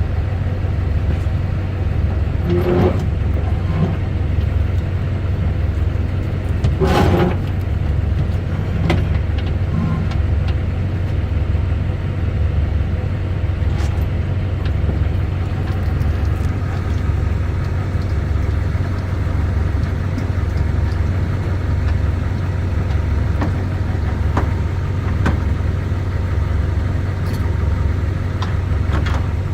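A large engine idling steadily with an even low throb, and a few sharp knocks over it, the loudest about 7 seconds in.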